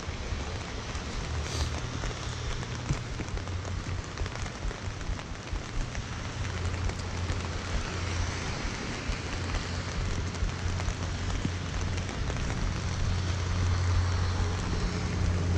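Rain falling on a clear plastic umbrella held overhead, a dense ticking of drops over an even hiss, with a steady low rumble of city traffic beneath that grows louder in the second half.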